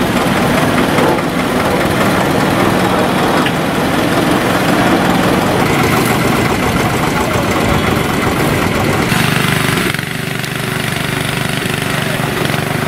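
Tractor's diesel engine running steadily. About ten seconds in the sound changes abruptly to a somewhat quieter, steadier engine hum.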